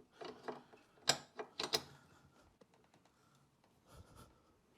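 A hand tool working a bolt on a motorcycle's bodywork: a few short metallic clicks and scrapes in the first two seconds, then fainter handling. The bolt seems to be turning in place rather than loosening.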